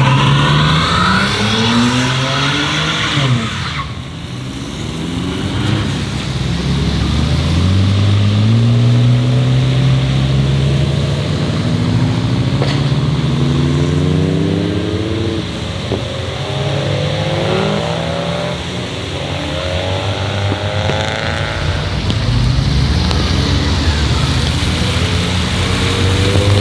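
Modified cars pulling away one after another: engines revving up through the gears, their pitch climbing and dropping at each shift, over the hiss of tyres on a wet road. Among them are a Nissan Skyline R34, a Subaru Impreza and a Mitsubishi Lancer Evolution.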